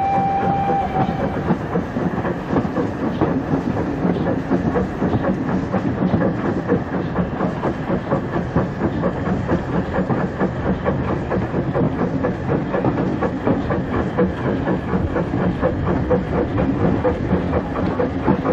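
00 gauge Dapol model of a Stroudley Terrier 0-6-0T steam tank engine hauling a train of goods vans along the track, with a steady run of rapid ticks and rumble from the wheels and motor. A short steady whistle-like tone sounds at the start.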